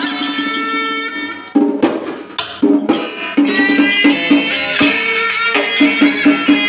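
Traditional Vietnamese ceremonial music with percussion and a melody. A held note gives way, about a second and a half in, to scattered percussion strokes. Then a quick, steady rhythm of repeated low notes returns under a melody that bends in pitch.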